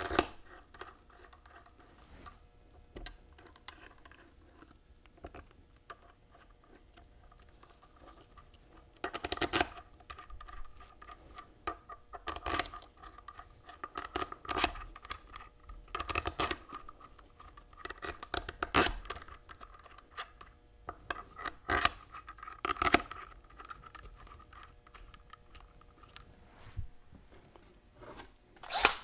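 Steel case bolts being set into the bolt holes of a Dana Powr-Lok differential case and turned in by hand: a series of light metallic clinks and scrapes, about seven separate bursts.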